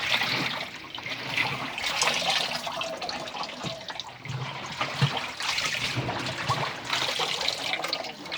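Water sloshing and splashing inside the drum of an Indesit WIE127 washing machine as it turns on its drum clean cycle, with occasional soft thumps.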